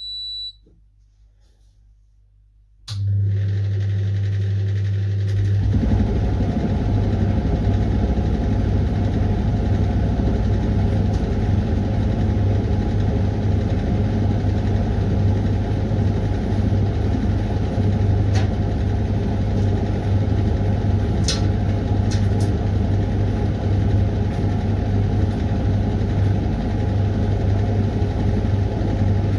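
Hoover washing machine starting its Refresh cycle: a short beep, then about three seconds in a steady low mains hum starts up, joined a couple of seconds later by a steady rushing sound that carries on with a few faint clicks.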